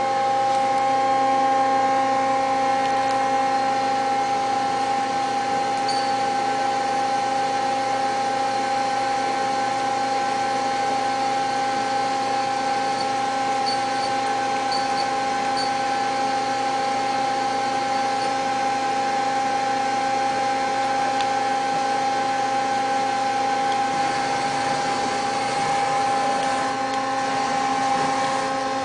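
Mazak Quick Turn 20 CNC turning center running under power, giving a steady machine whine that holds one pitch throughout, with a few faint light ticks.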